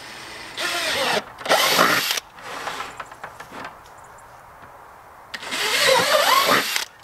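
Cordless drill with an 11/32-inch bit boring through the plastic wall of a 5-gallon bucket. It makes two runs: one starts under a second in, with a short break, and a second starts about five seconds in. The motor's pitch wavers as the bit bites.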